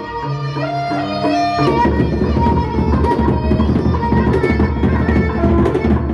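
Gendang beleq ensemble: a held, stepwise melody line sounds alone for about a second and a half, then the large gendang beleq barrel drums and clashing hand cymbals come in with a dense, fast beat under it.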